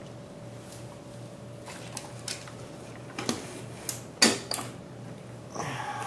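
Scattered light clicks and taps of small hard parts being handled while a CPU water block and its mounting hardware are fitted onto a motherboard, the loudest a little after four seconds in, over a faint steady hum.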